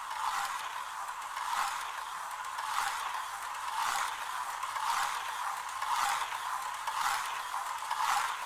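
A TCR slot car running laps on its plastic track: a small electric motor and gears whirring and rattling, swelling and fading about once a second. The car is under remote control at speeds up to full.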